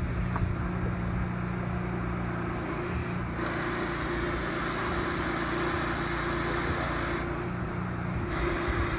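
Angloco water-mist lance hissing as it sprays fine mist into a car's engine bay on fire. The hiss starts sharply a few seconds in, stops briefly near the end and starts again. Under it runs the steady hum of an engine.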